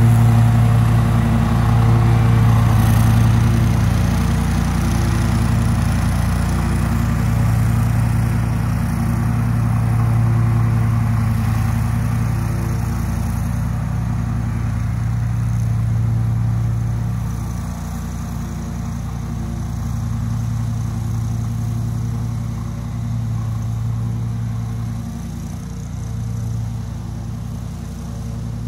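Bad Boy Maverick HD zero-turn mower's 779cc Honda V-twin engine running steadily at cutting speed with the 60-inch deck engaged in tall wet grass, gradually fading as the mower moves away.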